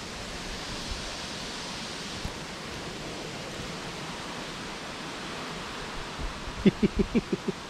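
Steady rush of a flowing brook. Near the end comes a quick run of about six short, loud sounds.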